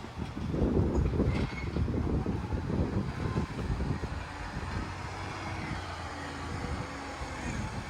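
Green-waste collection truck running close by: a heavy rumble for the first few seconds, settling into a steadier engine hum.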